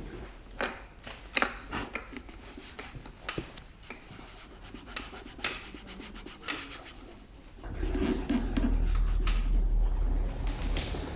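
Leather shoe being hand-polished: a series of short, brisk rubbing strokes on the leather, then about eight seconds in a louder, steadier rubbing with a low rumble.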